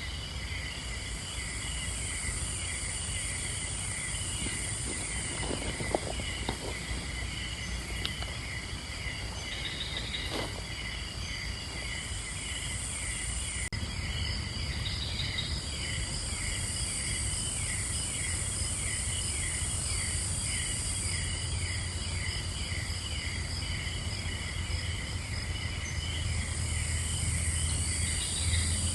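Night insect chorus in tropical rainforest: layered steady chirping with a regular pulsing trill, and a higher buzz that swells and fades in waves several seconds long.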